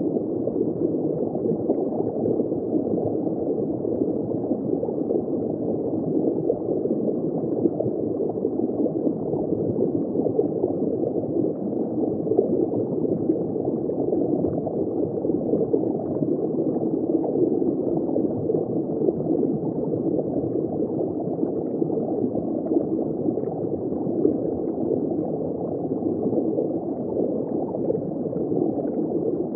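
Steady, muffled gurgling and rushing of circulating water in a saltwater reef aquarium, unbroken and even.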